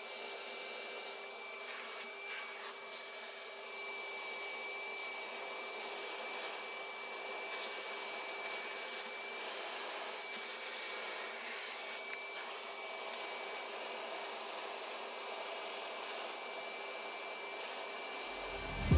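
Vacuum cleaner running steadily, its motor giving a constant high whine over an even rushing noise.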